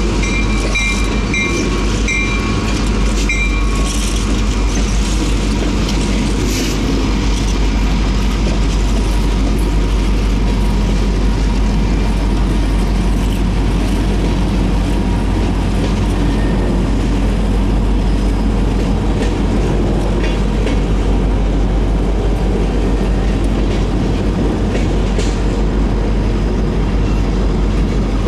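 Freight train rolling slowly past: diesel locomotives and then boxcars rumbling, with wheels clacking over the rail joints. High-pitched tones sound in the first three seconds, then the rumble carries on steadily.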